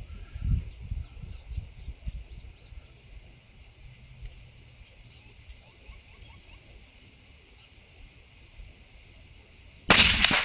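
Insects droning steadily in one high, even tone, then a single rifle shot from a 6.5 Grendel AR near the end: a sharp crack that trails off in an echo.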